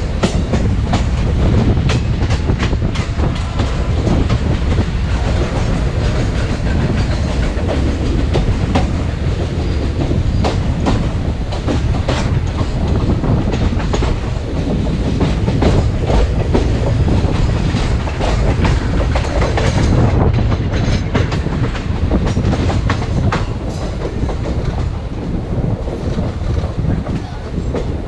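Indian Railways express train running at speed, heard from beside an open coach window: a loud steady rumble of wheels and running gear, with frequent irregular clicks of wheels passing over the track.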